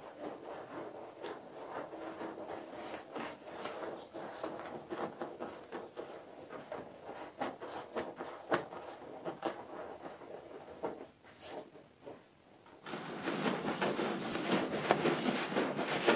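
Long-handled brush broom scrubbing a soapy, foam-covered carpet in repeated short strokes. About three-quarters of the way through, the scrubbing turns suddenly louder and denser as the bristles work through wet foam.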